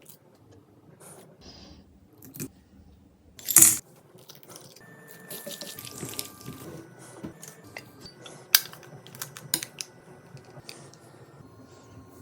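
Kitchenware clinking and clattering: metal utensils knocking against dishes in scattered sharp clicks, some left ringing briefly, with one louder clatter about three and a half seconds in.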